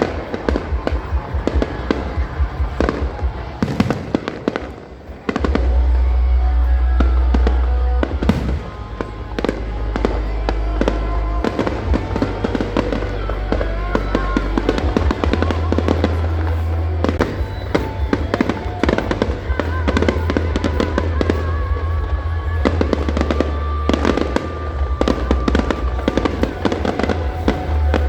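Fireworks display: a dense, continuous run of bangs and crackling from aerial shells, over a steady low rumble.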